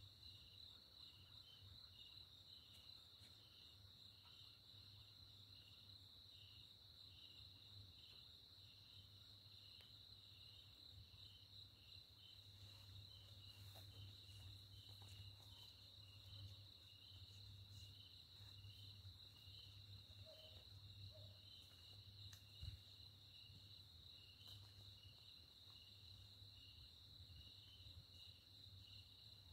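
Crickets chirring faintly at night: one steady high trill, with another chirping about twice a second. Under them is a low rumble that swells in the middle, and there is one sharp tick about two-thirds through.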